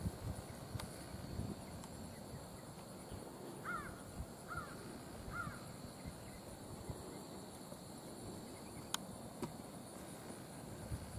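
Faint hoofbeats of a ridden horse on dry grass. About four seconds in, a distant bird gives three short calls about a second apart, over a steady high insect drone.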